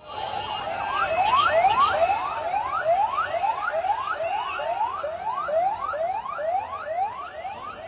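Vehicle siren sounding a rapid, repeating rising whoop, about two sweeps a second.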